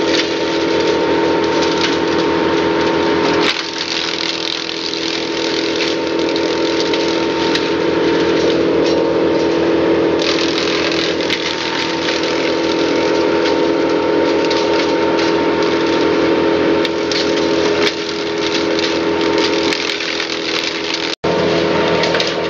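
Timberwolf TW150 disc chipper running at working speed, its engine drone steady under the dense crackling and splintering of brash and limbs being fed in and chipped.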